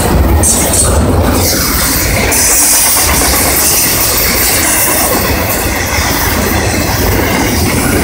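Double-stack intermodal freight train's well cars rolling past at close range: a steady, loud rumble and hiss of steel wheels on the rails.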